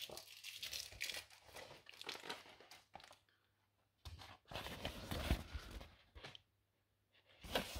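Plastic wrapping and a rolled painting canvas being handled and unrolled, crinkling and rustling in two spells, with a short pause about three seconds in; the second spell is louder.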